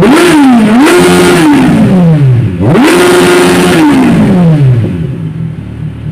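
Kawasaki Ninja 1000SX's four-cylinder engine, warmed up and running with the stock exhaust canister removed, revved hard twice at standstill. Each rev climbs, holds briefly at the top and falls back, and the engine drops to idle near the end.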